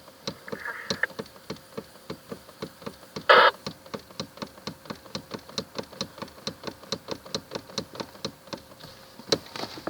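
Rapid, even knocking from a Toyota Camry's steering, about four short knocks a second, the steering knock the car is being checked for. A brief louder rasp cuts in about a third of the way through.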